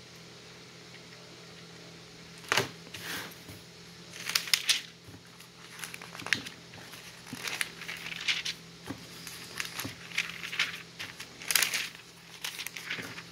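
Paper pages of a thick product catalogue being turned and riffled by hand, a rustle or flap every second or so starting about two and a half seconds in, over a steady low hum.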